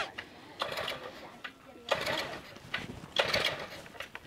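Small engine-powered floor compactor running with a rapid mechanical rattle, tamping a house's earth floor. Louder surges come about every second and a quarter.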